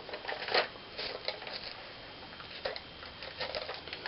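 Scattered light clicks and rustling from a plastic toy being handled and fitted onto a wrist.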